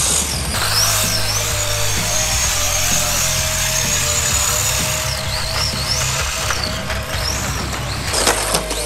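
Brushed electric motor of a 1/10-scale Associated Hoonitruck RC truck whining as it drives, its pitch rising and falling repeatedly with the throttle, over background music.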